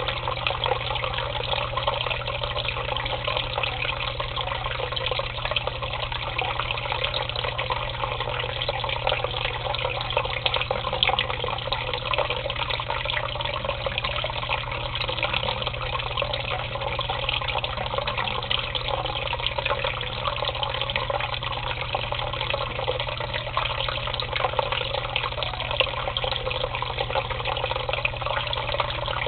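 Water running steadily into a shallow tub of water, an unbroken splashing that churns bubbles at the surface, over a low steady hum.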